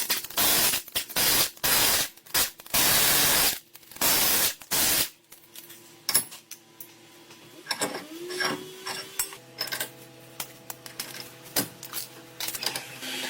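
Several loud bursts of hissing, each up to about a second long, in the first five seconds; then quieter clicks and knocks, with a steady mechanical hum coming in about nine seconds in.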